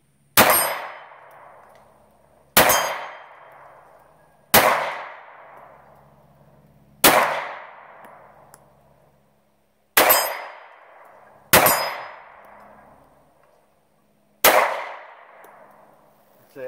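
Seven shots from a Ruger LC9s Pro 9mm pistol, fired one at a time about one and a half to three seconds apart, each shot followed by a short echo that dies away.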